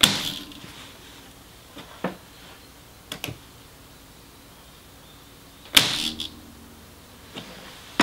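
Electric staple gun firing staples into pallet wood twice, about six seconds apart: each shot is a sharp, loud snap followed by a brief mechanical whirr. A few light clicks of handling fall between the shots.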